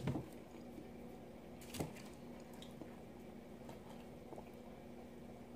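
Quiet eating sounds: a person chewing sushi, with a couple of short clicks over a steady low hum.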